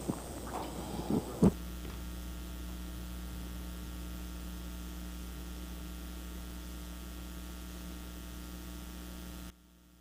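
Steady electrical mains hum through the sound system, after a few short knocks in the first second and a half; the hum cuts off abruptly near the end.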